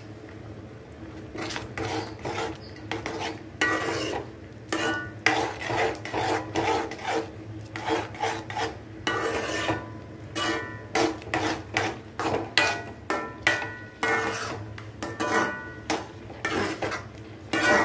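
A spoon scraping and stirring thick sauce in an aluminium kadai, in quick repeated strokes about two a second that start about a second and a half in, with a faint metallic ring on the strokes.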